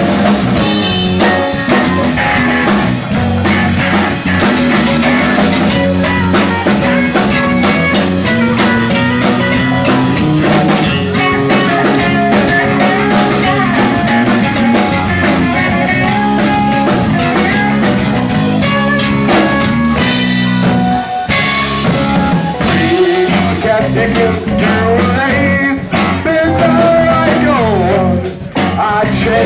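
Live rock band playing an instrumental passage with no vocals: two electric guitars, keyboard and drum kit.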